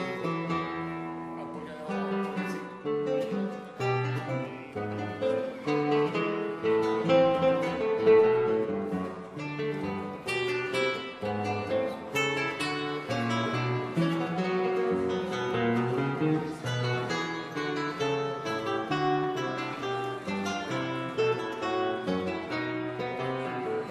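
Acoustic guitar music: a continuous run of plucked notes.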